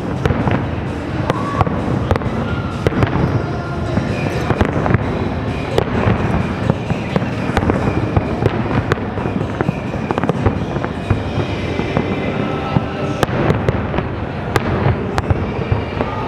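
Fireworks display in full swing: a dense, unbroken run of bangs and crackles from bursting shells, with music playing underneath.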